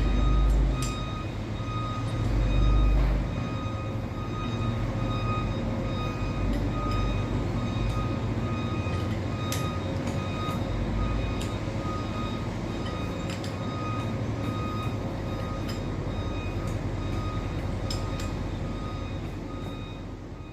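Steady mechanical running noise with a constant high whine, a few low thumps in the first few seconds and scattered light clicks, fading out near the end.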